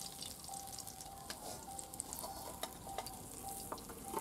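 Tangra fish sizzling and crackling in hot mustard oil in an aluminium karai as a metal spatula lifts them out, with a few sharp clicks of the spatula against the pan.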